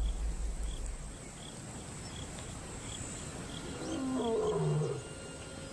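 Lion roaring in the distance, a deep moaning call swelling about four seconds in. It is the territorial roar of a rival pride male proclaiming ownership of the lioness and his ground.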